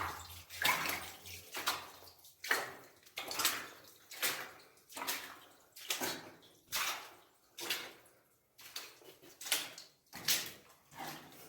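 Footsteps wading through shallow water in a flooded mine tunnel, a splash at each step, a little more than one step a second, echoing off the rock.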